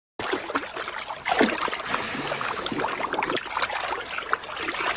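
A lion running through shallow water, its legs splashing repeatedly.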